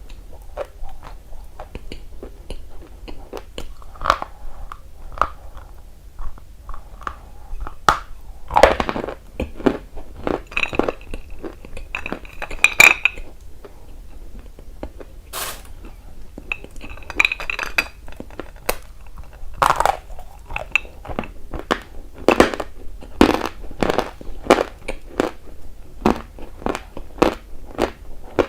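Close-miked biting and chewing of dry, crunchy chalky clay: irregular sharp crunches, some much louder than others.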